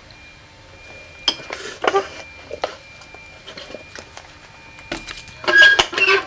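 Metal spoon clinking and scraping against a ceramic bowl as ice cream is scooped out, a few scattered clinks, with a louder cluster near the end.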